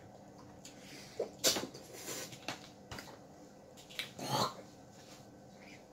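Eating sounds at a seafood boil: a few short clicks as crab shells are picked apart, with chewing and two short breathy noises from the mouth or nose, about one and a half and four seconds in.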